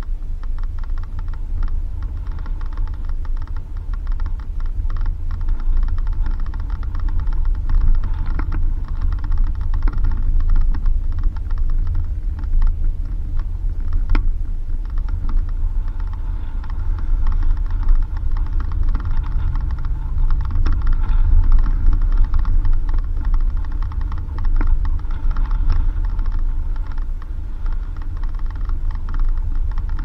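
Suzuki Jimny driving on a dirt road: a steady low rumble of engine and tyres with constant rapid clicking and rattling.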